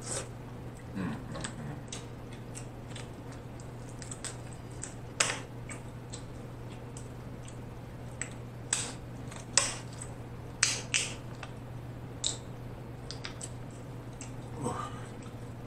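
Close-up eating sounds of snow crab legs: scattered wet smacks, sucking and sharp clicks as meat is sucked and pulled from the shell and chewed. A steady low hum runs underneath.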